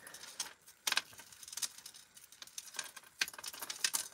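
Metal jewelry chains clinking and jingling in the fingers as a tangle is picked loose: a run of small, irregular clicks.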